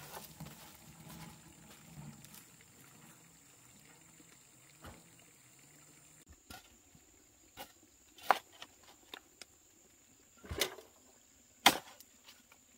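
Sharp knocks and clicks at irregular intervals over a faint steady high hiss, the two loudest about eight and a half and eleven and a half seconds in.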